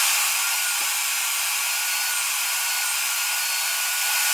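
Shop vac running steadily with its hose nozzle in a front-loading washer's drain-pump filter opening, sucking out debris. A steady rushing hiss with a faint whine.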